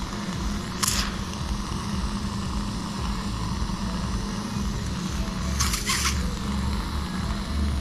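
Steady low mechanical hum, with two short hissing noises, about a second in and again around six seconds.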